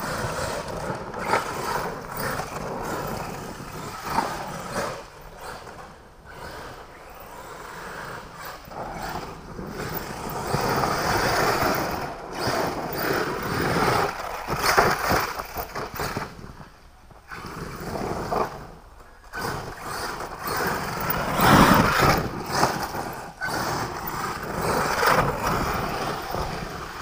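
Radio-controlled monster truck driving over a dirt track: motor and tyres on loose dirt, the sound surging and dropping, mixed with wind rush on the microphone.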